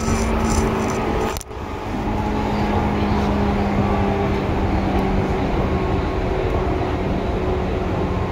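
Seibu 2000 series electric train running: steady rolling noise with a low hum whose pitch sinks slightly, and a brief sudden dip in loudness about a second and a half in.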